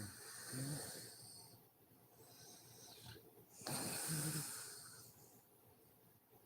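A woman snoring in her sleep: two snores about three and a half seconds apart, each a low hum with a breathy hiss.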